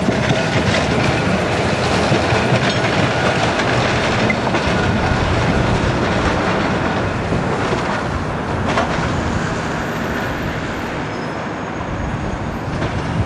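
Blackpool tram running past close by, its wheels rolling on the street rails with a few clacks. The sound slowly fades over the second half as it moves away.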